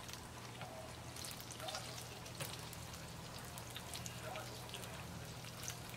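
Bread-coated apple squares (menbo sagwa) deep-frying in hot oil: a steady sizzle with scattered small pops and crackles, over a low steady hum.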